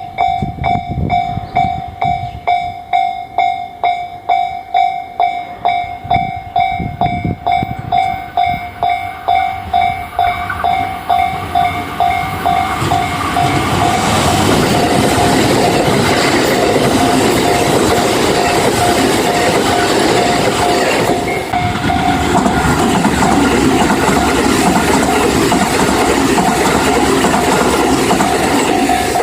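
Level-crossing warning bell ringing in a steady rhythm of about two strokes a second. About twelve seconds in a train reaches the crossing, and its running noise on the rails grows loud and keeps going over the bell.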